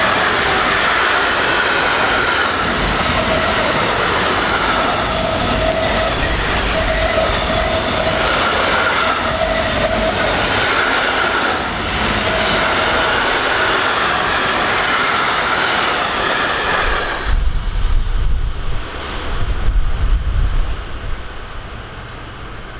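Intermodal freight train's container wagons rolling past on the rails: steady rolling noise with a ringing tone that comes and goes. About 17 seconds in, the last wagon passes and the rolling noise cuts off, leaving a low rumble that fades away.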